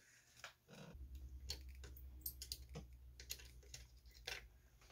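Faint scattered clicks and light taps of a soldering iron and metal tool working against a circuit board as a power transistor is pried loose, over a low steady hum that starts about a second in.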